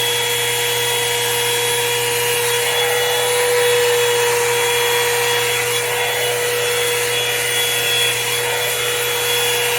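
Revlon One-Step hair dryer brush running steadily: a constant high motor whine over rushing air.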